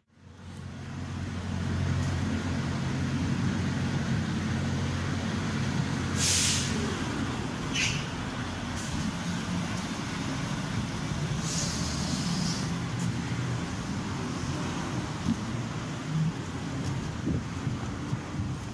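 Street traffic in stop-and-go: a truck or bus engine runs steadily under the traffic noise, with a short air-brake hiss about six seconds in and a longer one around twelve seconds.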